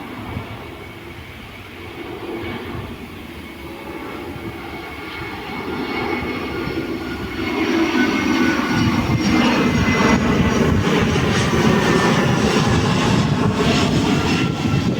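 Airbus A330-200 jetliner on landing approach flying past: jet engine noise grows louder, jumping up about halfway through and staying loud, with high whining tones that slowly bend in pitch.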